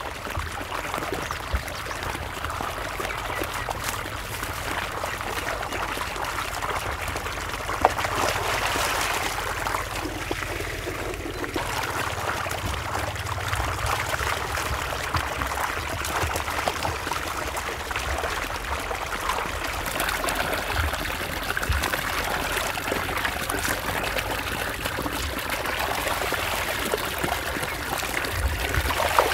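Water trickling and running steadily, with one brief sharp knock about eight seconds in.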